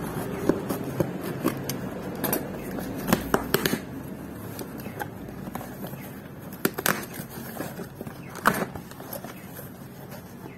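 A cardboard shipping box being opened: a utility knife slitting the packing tape, then the flaps pulled apart, with scattered sharp clicks and crackles of cardboard and paper.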